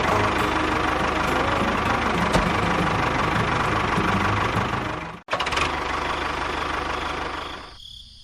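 An engine running steadily. The sound cuts out abruptly about five seconds in, starts again, and fades away near the end.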